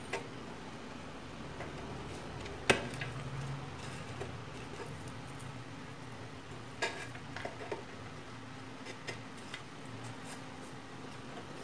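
Small plastic clicks and knocks of a rocker switch and a small round panel part being pressed and fitted into holes in a wooden board: one sharp click a little under three seconds in, then a run of lighter clicks around seven seconds in.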